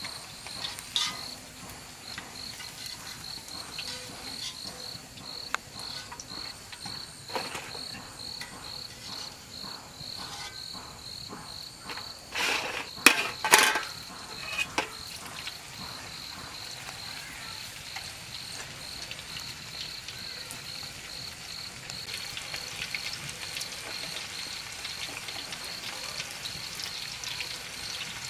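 An insect chirping steadily, a high pulsed call repeated about three times a second. A few loud clattering knocks come about halfway through, and a sizzling hiss builds up near the end.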